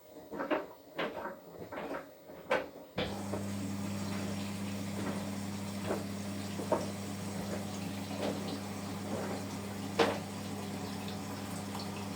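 Washing machine: a few sharp clicks and knocks, then about three seconds in a steady low hum starts abruptly together with the rush of running water, with a few light knocks over it.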